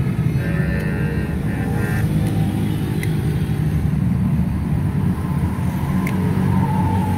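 Steady road traffic: a continuous low engine rumble from vehicles running on the road beside the stall. A couple of faint sharp clicks sound over it, the second about six seconds in.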